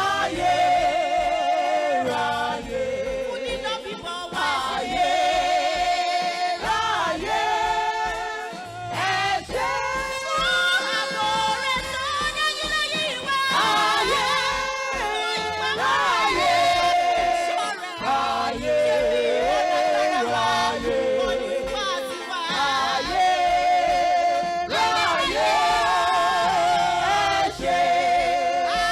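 Gospel worship music: voices singing long held notes with vibrato over instrumental backing.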